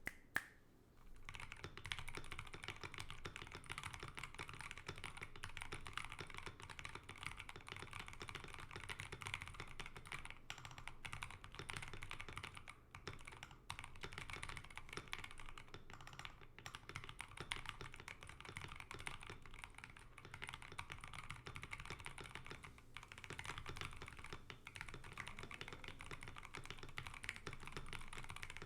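Fast, continuous typing on a mechanical keyboard in a wooden case, fitted with lubed and filmed 67 g Zealios V2 tactile switches and XDA-profile keycaps: a dense run of keystroke clacks. It opens with one sharp click, and the typing starts about a second in, with a few brief pauses.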